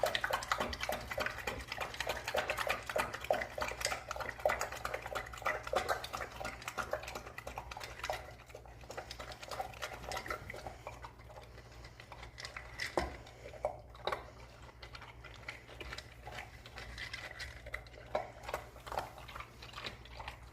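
Rapid clinking and scraping of a utensil against a dish, as when a dog's food is being mixed. It is dense for the first several seconds and gives way to sparser clinks and a few sharper knocks.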